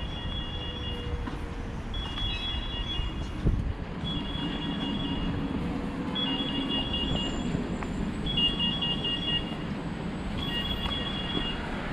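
An electronic beeper sounds a short burst of rapid high beeps about every two seconds over a steady rumble of street traffic. A brief thump comes a little over three seconds in.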